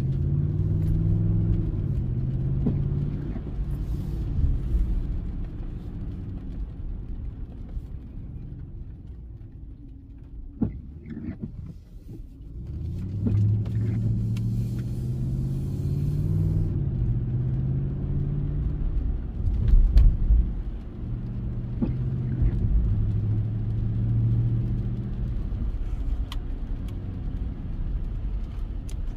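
Ram 1500 engine and stock factory exhaust heard from inside the cab with the windows up: a low drone that rises in pitch as the truck pulls away and drops back as it shifts. It goes quieter for a few seconds near the middle, then builds again as the truck accelerates.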